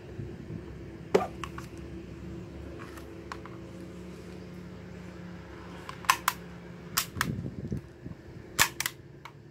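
Sharp plastic clicks and knocks, several in quick pairs, from two spring-powered airsoft pistols, a Tokyo Marui HK USP and Mk23, being picked up and handled.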